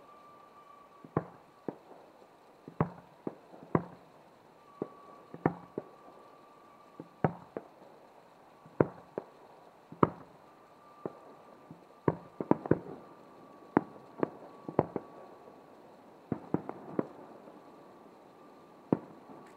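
Fireworks display: aerial shells bursting, a string of sharp bangs at irregular intervals, some coming in quick runs of two or three.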